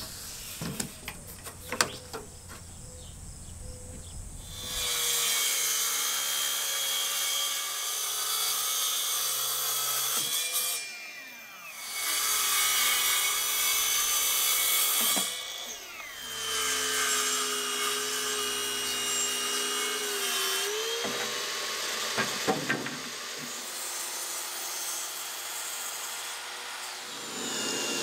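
Ryobi 18V brushless cordless track saw cutting plywood in three passes, its motor winding down in a falling whine after each cut. Near the end, a cordless drill bores pocket holes through a jig into the plywood.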